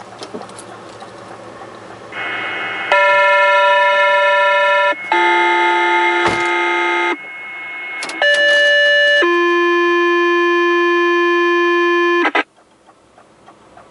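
Fire dispatch pager tone-out over a two-way radio speaker: a sequence of steady electronic tones, each held one to three seconds before jumping to a new pitch, ending with a short tone followed by a longer one. Tones like these alert a fire department's pagers, here the call to activate a mutual-aid company.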